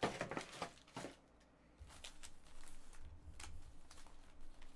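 Foil Panini Select trading-card packs being handled and squared into stacks: faint, scattered crinkles and clicks of the wrappers, clustered in the first second, with a few more later.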